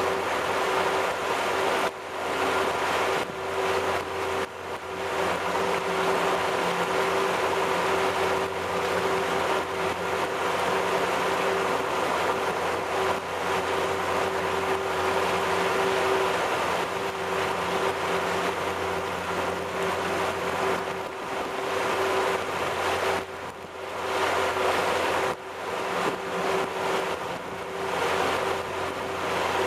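A 350 cubic-inch V8 MerCruiser inboard engine runs at a steady pitch as the boat moves under way. Water rushes and splashes along the hull in its wake.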